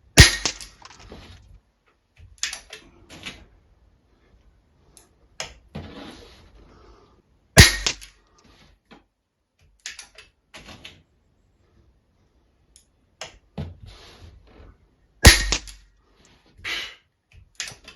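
Anschütz 9015 HP pre-charged pneumatic air rifle fired three times, each shot a sharp crack, about seven and a half seconds apart. Quieter clicks sound between the shots.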